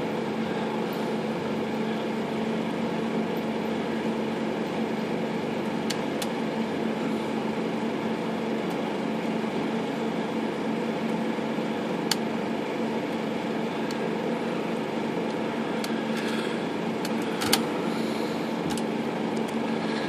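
A steady mechanical hum, unchanging throughout, with a few faint clicks from a portable typewriter's carriage and margin parts being moved by hand.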